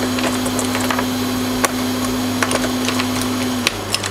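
Hot air rework station blowing steadily with a hiss and a fixed hum, while a few light clicks come from tools on the board; near the end the blower's tone drops away as it winds down.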